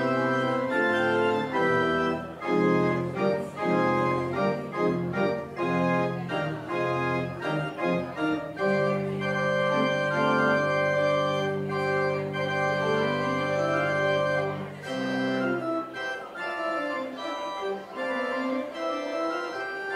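Church organ playing the postlude: a run of chords over a low bass line, a long held chord in the middle, then about four seconds before the end the bass drops out and a lighter, quieter passage follows.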